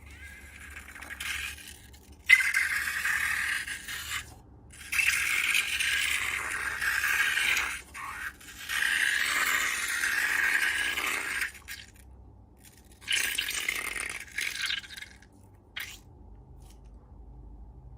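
Scraping and rattling from slime-making materials, in four bouts of a few seconds each with short quiet gaps between them.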